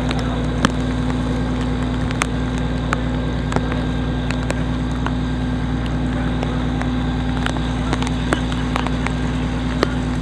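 A steady engine drone with a constant low hum, with scattered sharp cracks over it.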